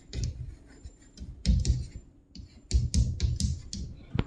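Handwriting: bursts of pen strokes scratching on paper, with light knocks against the desk, in four or five clusters.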